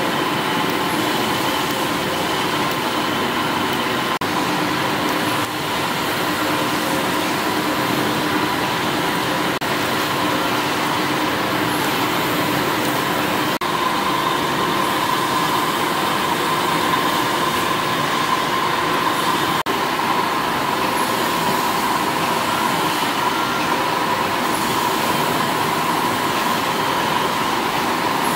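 Several stationary steam engines running together, giving a steady mechanical running noise with a constant high hum and hiss.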